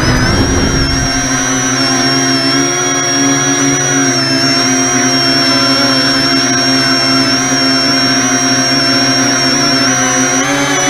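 Electric brushless motors and propellers of an E-flite Convergence VTOL model plane, heard from a camera on the airframe, lifting off and holding a hover: a loud, steady high whine over a lower hum, with a low rumble in the first second that fades, and the pitch rising slightly near the end.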